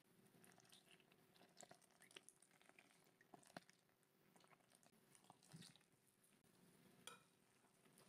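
Very faint kitchen sounds: a milk-and-yeast mixture poured from a glass jug onto flour in a glass bowl, with scattered light clicks and taps.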